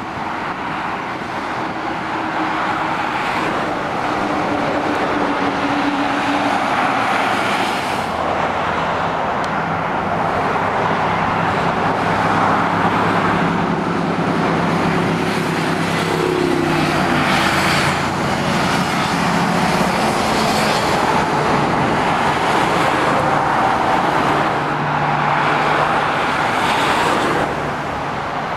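Steady dual-carriageway traffic heard from above: lorries and cars passing with tyre noise and engine drone, rising and falling as each vehicle goes by. Around the middle a string of motorcycles passes, their engine notes dropping in pitch as they go past.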